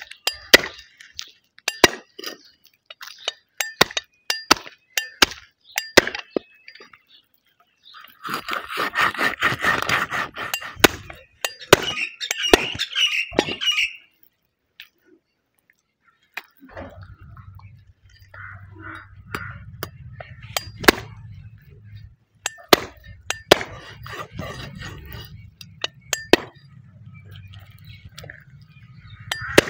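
A heavy knife chopping raw chicken on a wooden chopping stump: sharp, irregular strikes of the blade through meat and bone into the wood, with a denser, noisier stretch of cutting about a third of the way in.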